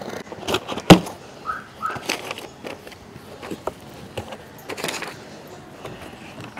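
Cardboard box being opened with a small knife: scraping and tearing of the tape and card, a sharp knock about a second in, then the flaps folding back and a paper leaflet rustling as it is pulled out.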